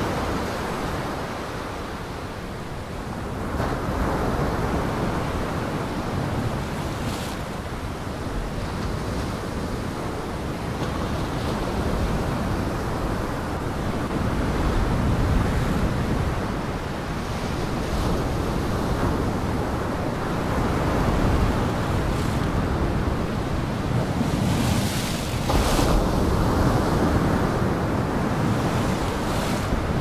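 Storm surf: heavy waves breaking and washing in one continuous rushing noise with wind, swelling and easing every few seconds.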